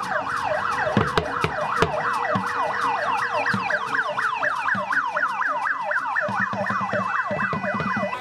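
A vehicle siren in a fast yelp, its pitch rising and falling about four times a second without a break, with a few sharp knocks over it.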